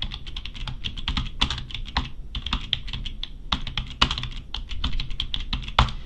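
Typing on a computer keyboard: quick, uneven key clicks with a short pause about two seconds in and a few louder strokes.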